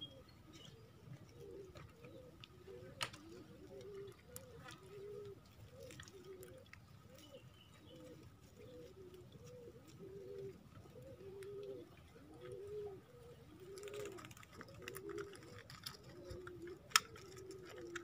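Pigeons cooing: a steady run of low coos, each rising and falling, about one and a half a second. A few faint chirps are heard, and a sharp click comes near the end.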